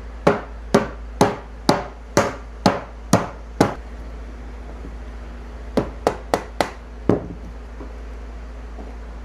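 Hammer blows on the wooden cabinet as it is knocked apart at its joints: a steady run of about eight sharp strikes, two a second, then a pause and a quicker burst of four strikes and one more. A steady low hum runs underneath.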